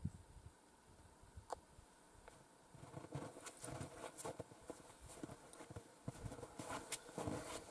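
Footsteps in snow, starting about three seconds in and growing louder as the walker comes closer.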